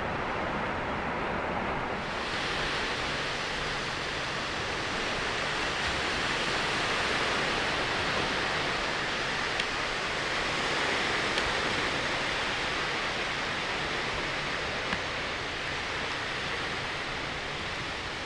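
Steady rush of ocean surf washing onto the beach, an even hiss with no distinct breaks, turning brighter about two seconds in.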